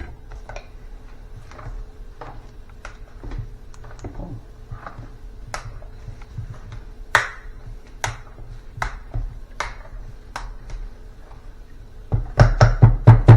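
Hand potato masher working through boiled potatoes in a pot, making irregular clicks and taps against the pot, with a quick run of heavier knocks near the end.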